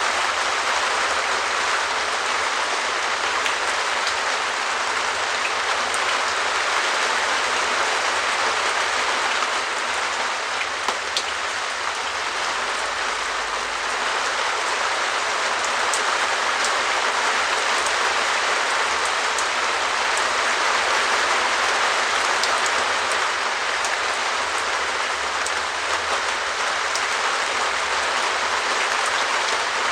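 Steady rain falling on a shed's perspex roof: a dense, even patter with single drops ticking sharply above it.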